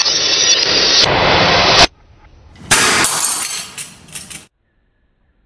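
Glass light bulbs shattering, a long rush of breaking glass that cuts off suddenly just before two seconds in. A second burst of shattering starts abruptly near three seconds and fades out.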